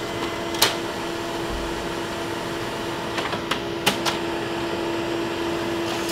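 Canon ImageCLASS MF634Cdw colour laser printer running through a double-sided print job: a steady hum with a constant tone, and a few sharp clicks, one about half a second in and a cluster around three to four seconds in.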